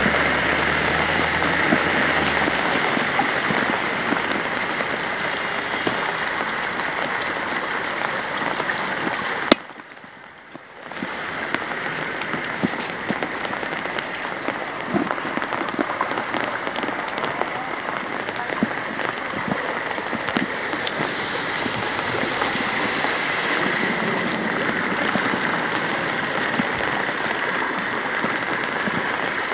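Steady rain falling on an umbrella canopy overhead, with many small drop hits over an even hiss of rain and running floodwater. A vehicle engine idles low for the first couple of seconds, and about ten seconds in a click is followed by about a second in which the sound drops away.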